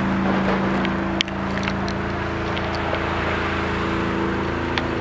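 Water pump motor running at a steady speed, a constant hum, pumping tide floodwater out of a flooded garage. A sharp click about a second in and a fainter one near the end.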